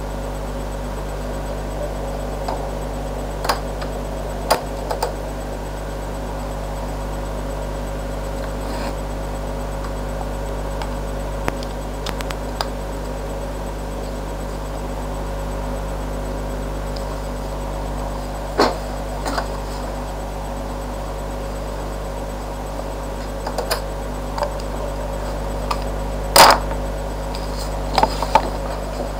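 Steady hum and hiss, with scattered short clicks and knocks of plastic over-ear headphones being handled on a desk, the loudest knock near the end.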